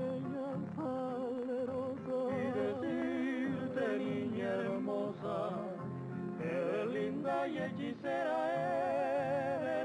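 A song playing: a singer holding long notes with vibrato over instrumental accompaniment.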